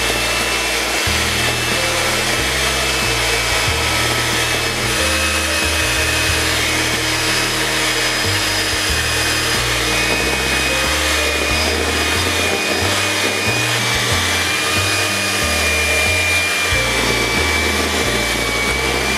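Electric hand mixer running steadily, its twin beaters working flour into a thick cake batter, with a high motor whine that sags slightly in pitch later on as the batter stiffens. Background music plays underneath.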